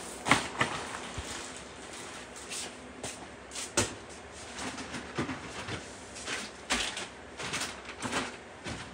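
Rummaging in an open cardboard shipping box: rustling of cardboard and packing, with scattered knocks and clicks. The sharpest come just after the start and about four seconds in.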